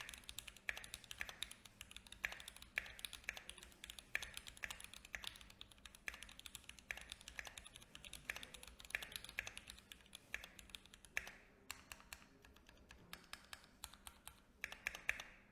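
Typing on a Keychron Q3 mechanical keyboard with pre-lubed tactile Gateron G Pro Brown switches, gasket-mounted with foam inside the case. The keystrokes are very quiet, and they thin out for a couple of seconds near the end before a few more.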